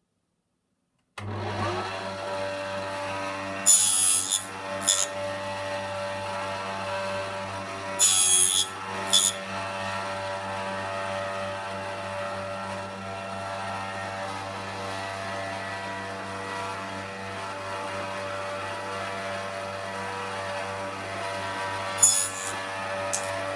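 Small benchtop table saw starting up about a second in and then running with a steady hum. Three short, sharp bursts of the blade cutting through thin kumiko strips on the sled, a few seconds in, about eight seconds in and near the end.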